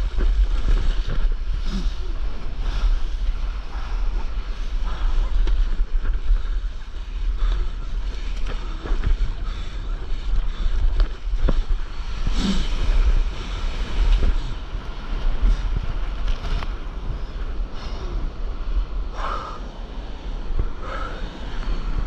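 Wind buffeting the microphone with a steady low rumble, over the wash of breaking whitewater and the intermittent splash of paddle strokes.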